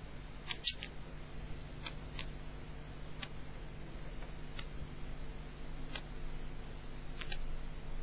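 Quiet room tone: a low steady hum with a few sharp faint clicks scattered through it, the loudest a double click under a second in.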